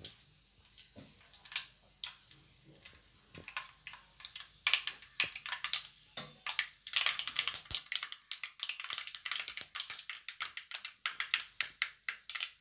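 Mustard seeds popping and spluttering in hot oil in an earthen chatti: a few scattered pops at first, turning into a dense crackle of quick sharp pops from about five seconds in. It is the tempering stage, the seeds bursting once the oil is hot enough.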